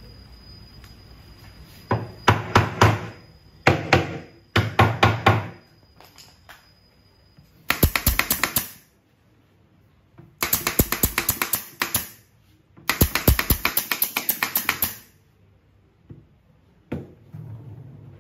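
Pneumatic nail gun firing rapid strings of nails into the wooden panels of a subwoofer cabinet, in six bursts of many quick sharp shots each, with short pauses between.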